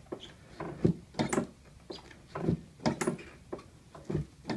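A quick series of sharp knocks and thumps, about a dozen, many in close pairs, from a chiropractor's hands working a patient on a treatment table during an adjustment.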